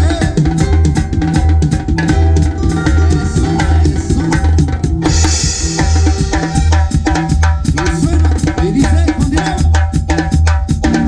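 Band music driven by a drum kit: a steady bass-drum-and-snare beat under a repeating bass line and pitched instruments, with a cymbal wash coming in about five seconds in.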